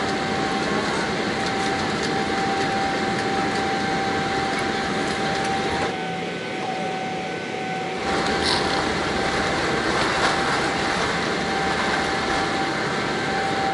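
Steady cabin noise inside a passenger jet airliner: engine and air rush with a constant whine. The sound thins out for about two seconds near the middle.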